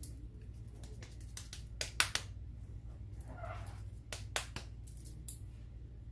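Raw minced beef being squeezed and patted between bare hands onto a wooden skewer: a series of short, wet slaps and squishes, the sharpest about two seconds in.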